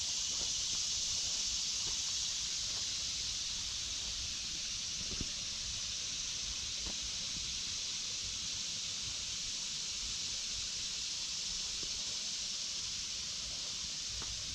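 Dense, steady chorus of cicadas ("locusts"), a continuous high hiss that never breaks, over a faint low rumble and one soft footstep tick about five seconds in.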